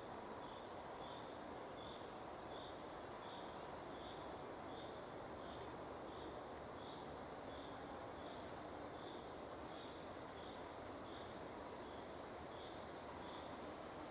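A faint, high, short chirp repeated evenly about three times every two seconds, a small animal calling over a steady outdoor hiss.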